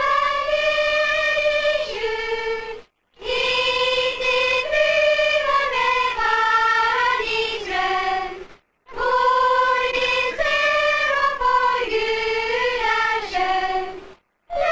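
A choir of girls' voices singing a Christmas carol in unison, with no accompaniment. The melody runs in phrases, with brief pauses about three seconds in, near nine seconds and near the end.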